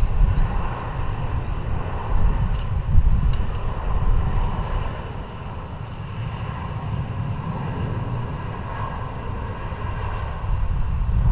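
Jet airliner engines giving a low, uneven rumble that stays fairly steady throughout.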